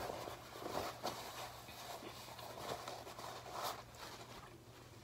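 Paper towel rustling and crinkling as it is unfolded and crumpled in the hands, with a few louder crinkles, dying away about four seconds in.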